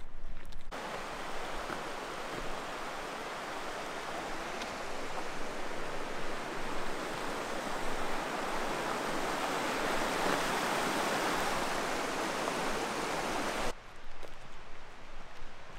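Mountain creek rushing over rocks, a steady rush of whitewater that begins about a second in and cuts off suddenly near the end.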